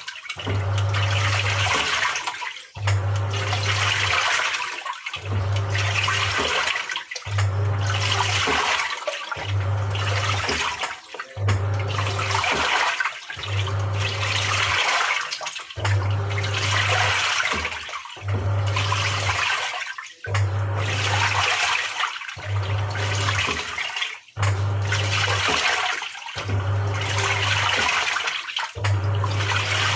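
Samsung 6.5 kg top-loader washing machine agitating: its motor hums as the pulsator swishes the water one way and then the other, about one stroke every two seconds with a short pause between strokes.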